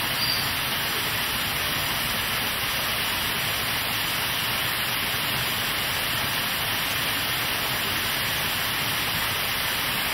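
A steady, even hiss of outdoor noise with no distinct events.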